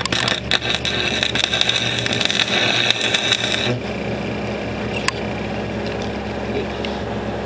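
Stick welding arc crackling and sputtering as a repair bead is run on a cracked mower front axle; the crackle stops a little past halfway, leaving a steady hum.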